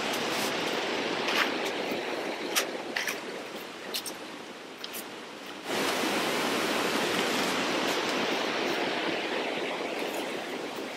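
Sharp crackles and snaps from a bamboo shoot's husk sheaths being pulled and torn off by hand, over a steady rushing noise like a nearby stream. The crackles fall in the first half. The rushing gets suddenly louder a little over halfway through.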